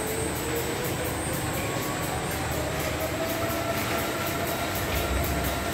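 Steady running noise of sludge-dewatering machinery, with pumps and motors humming. A faint whine rises slowly in pitch over the second half.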